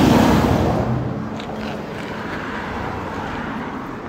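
Fire engine driving past close by without its siren. Its engine and tyre noise swell to a peak in the first second, then fade as it moves away.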